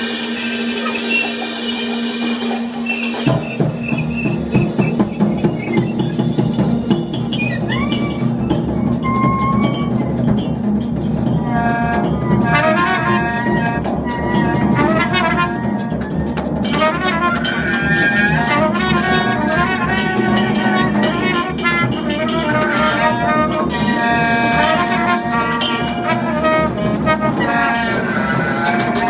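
Free-improvised jazz quartet playing live: drums and bowed double bass churn together and thicken about three seconds in, and a trumpet's pitched lines come to the front from about twelve seconds on.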